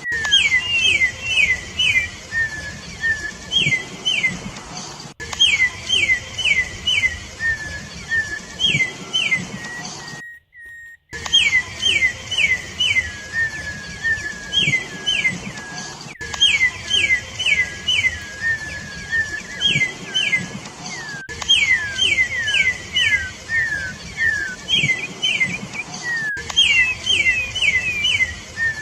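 Campo troupial (corrupião) singing: clear whistled notes in quick runs of three to five, repeated over and over, with a brief gap of silence about ten seconds in.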